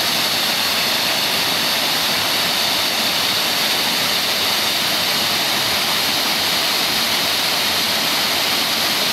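Waterfall rushing close by: a steady, loud roar of falling water that does not change.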